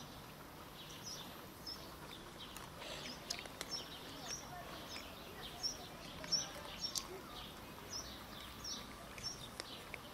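A small bird chirping over and over in the background, short high calls about twice a second, with a few soft sharp clicks in the middle of the stretch.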